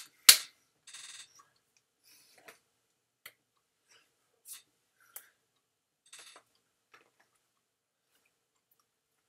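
Hands slapping together once, sharply, near the start, then scattered faint clicks and taps as the hands sign in ASL.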